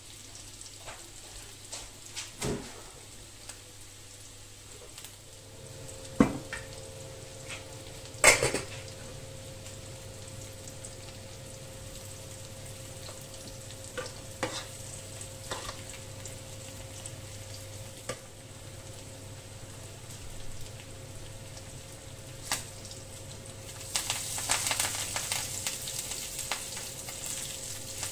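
Food frying in a pan on the stove, sizzling steadily, with several sharp knocks of utensils against the pan, one much louder about a third of the way in. A steady hum joins about five seconds in, and the sizzle gets noticeably louder near the end.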